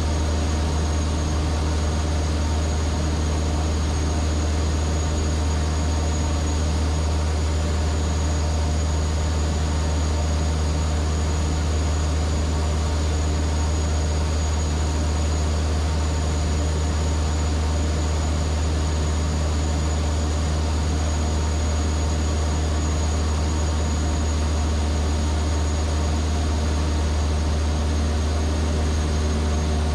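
Vans RV-7A's piston engine and propeller running steadily in cruise, heard from inside the cockpit as an unchanging drone with a strong deep hum and a faint high whine.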